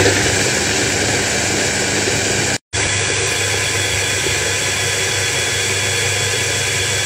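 Immersion hand blender with a chopper bowl attachment running steadily as it blends thick oat and protein-powder waffle batter. The sound cuts out for a moment about two and a half seconds in.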